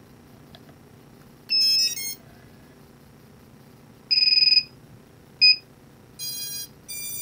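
FPV quadcopter powering up on its battery: the ESCs play a quick run of startup notes through the motors, then come a long loud beep, a short beep, and two more beeps near the end.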